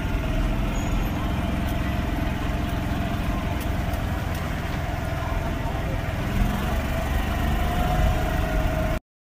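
Steady low rumble of a vehicle's engine and running noise heard from inside the cabin, with some muffled talk.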